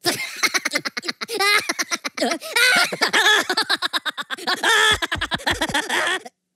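Two cartoon Minions, a yellow one and a furry purple one, laughing together in high-pitched voices, with fast repeated peals of laughter that break off just before the end.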